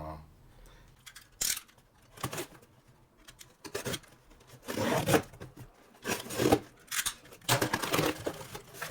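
A cardboard product box being opened by hand: packaging tearing, rustling and scraping in a series of short bursts, about six of them, with quiet gaps between.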